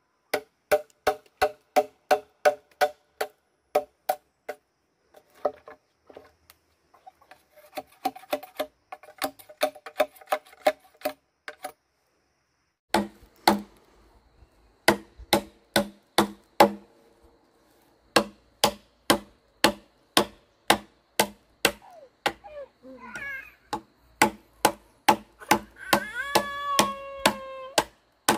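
Rhythmic striking with a tool, about three sharp blows a second, each ringing briefly, in runs broken by short pauses. Near the end a drawn-out animal call sounds over the blows.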